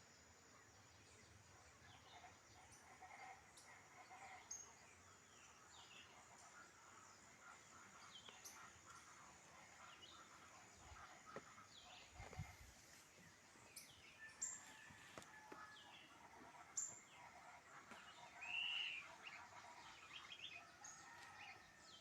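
Faint mix of forest birds calling, with many short chirps and whistles scattered throughout. An arched, louder call comes near the end.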